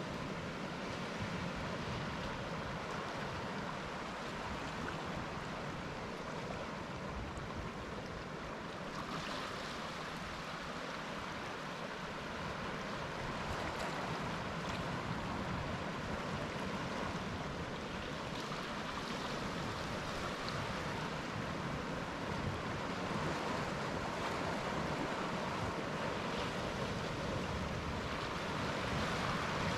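Sea waves breaking and washing up a beach, a steady surf noise that swells and eases with each wave.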